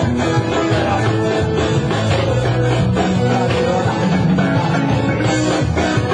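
Live rock band playing electric guitars, bass and drum kit in a steady beat.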